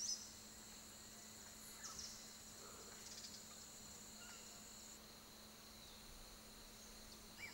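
Faint field ambience: steady, high-pitched insect trilling, one of the tones stopping about two-thirds of the way through, with a few faint short chirps.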